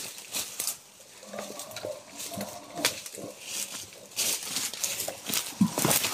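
Leaves, bamboo stems and twigs rustling and crackling in irregular bursts as people push through dense undergrowth on foot.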